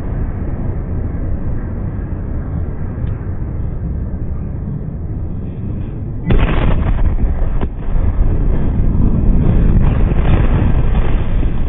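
Blast wave of the Beirut port ammonium nitrate explosion: a low, steady rumble, then a sudden loud boom about six seconds in as the blast reaches the phone, a sharp crack a little later, and loud rumbling noise that goes on after it.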